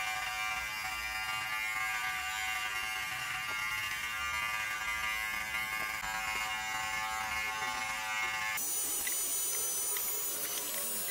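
Nova NG 1153 electric beard trimmer running while trimming facial stubble: a steady motor buzz. Near the end the buzz abruptly turns thinner and higher.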